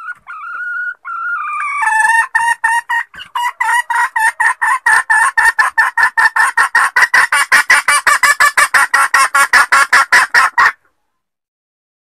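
Red junglefowl hen calling: a few drawn-out notes, then a fast, steady run of short clucking notes, about four or five a second, that stops abruptly near the end. A hen's call of the kind used as a lure to draw wild junglefowl roosters.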